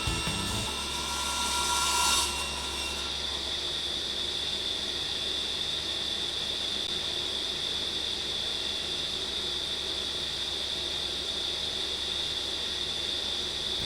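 Sliding-table saw running with a steady high whine, cutting through wood for the first two seconds or so, then spinning on with no cut.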